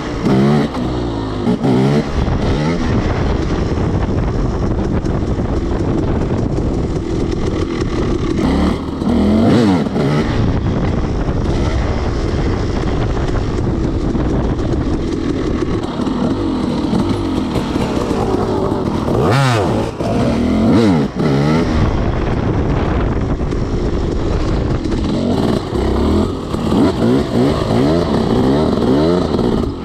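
300cc two-stroke dirt bike engine under way, revving up and down repeatedly as the throttle is worked.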